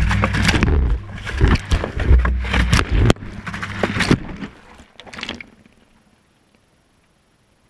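Inside a washing machine drum during the wash: water and wet laundry sloshing and knocking against the camera as the drum tumbles, over a low rumble. The tumbling dies away about five seconds in as the drum stops, leaving near silence.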